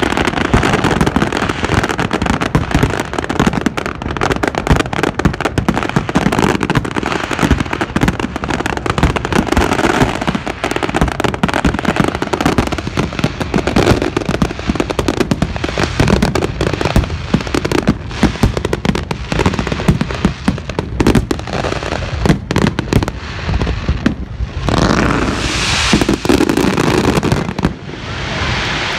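Fireworks finale: dense, almost continuous bangs and crackling of aerial shells going off in quick succession. Near the end, the separate bangs give way to a steady rushing noise.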